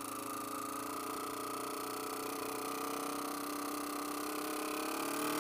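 Yamaha TW200's single-cylinder four-stroke engine running while riding, a steady pitched hum that dips slightly and then climbs gradually in pitch over a light hiss.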